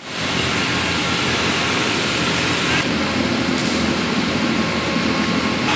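Steady running noise of plastic recycling-line machinery: a low hum under an even hiss. The high hiss dips for a moment about three seconds in.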